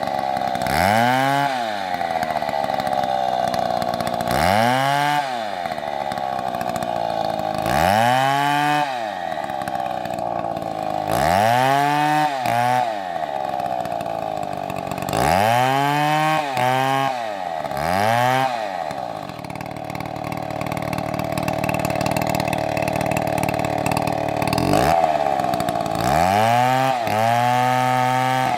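Two-stroke chainsaw running, its engine revved up and let back down again and again, about eight times, with three quick revs in a row about two-thirds of the way in and a longer held rev near the end.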